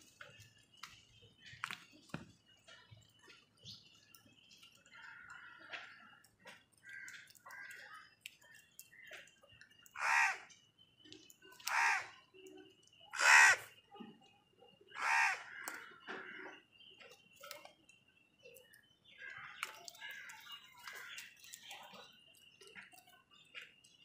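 House crows cawing: four loud, harsh caws about a second and a half apart in the middle, with softer calls and scattered faint clicks around them.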